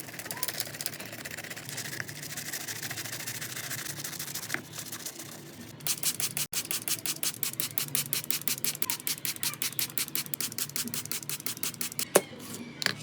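Brush scrubbing on a toy car. The strokes become a fast, even rhythm of about six or seven a second about halfway through, and there is a sharp knock near the end.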